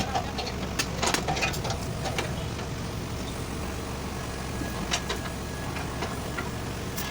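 Steady low engine-like hum, with scattered sharp clicks and knocks: a few about a second in, one near five seconds, and one near the end.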